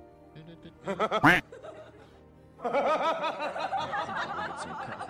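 Laughter added as a comic sound effect over background music: a short laugh about a second in, then a longer, louder run of laughter from about two and a half seconds on.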